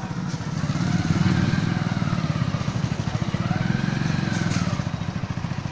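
Motorcycle engine running while riding along a rough street, its pitch rising and falling twice as the rider opens and eases the throttle.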